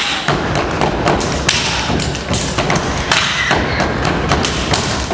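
Step routine: feet stomping on the stage floor and hands clapping in a quick, even rhythm, about three to four hits a second.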